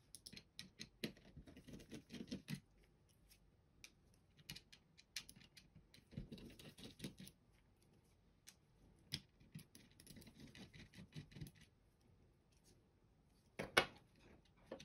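Faint, irregular clicks and scraping of small plastic parts and hand tools as switches and pieces are worked out of a computer mouse's top shell, with a louder cluster of clicks near the end.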